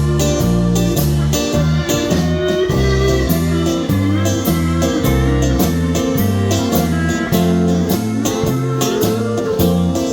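Country band playing an instrumental break: a guitar lead over a bass line and a steady drum beat, with sliding guitar notes near the end.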